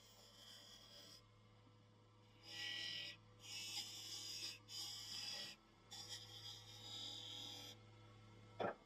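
Wood lathe running with a steady low hum while a turning tool cuts the spinning wooden handle blank in four short hissing passes, followed by a brief knock near the end.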